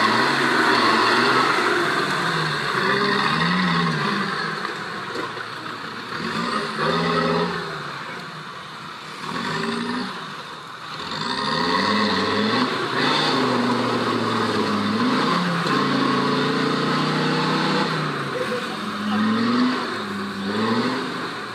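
Off-road 4x4 engine revving up and down over and over, its pitch rising and falling every second or two, with a quieter dip about halfway through.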